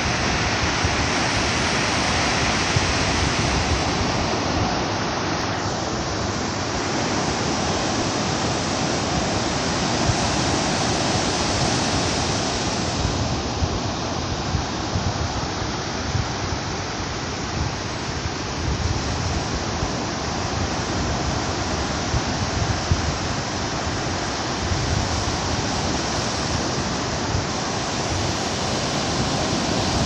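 Ocean surf breaking and washing up a sandy beach: a steady, continuous rushing of waves.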